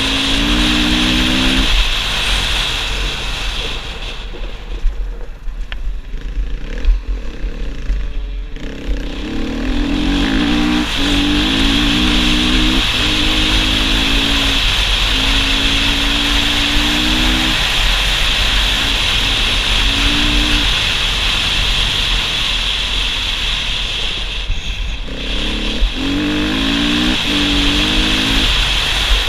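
Husqvarna FE 450's four-stroke single-cylinder engine pulling hard, its pitch climbing in short steps as the rider shifts up through the gears, under heavy wind noise on the helmet camera. The engine note fades under the wind for a few seconds twice.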